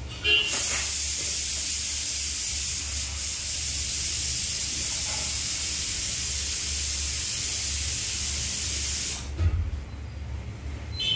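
Steady, even hiss that starts suddenly just after the start and cuts off suddenly about nine seconds in, over a faint low hum.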